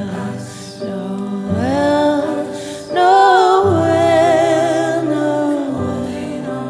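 Christmas music: singing voices hold long notes with vibrato over instrumental accompaniment, and a new, louder phrase begins about three seconds in.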